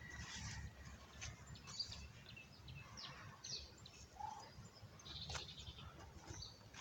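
Wind rumbling on the microphone, with scattered short bird chirps and a single sharp click about five seconds in.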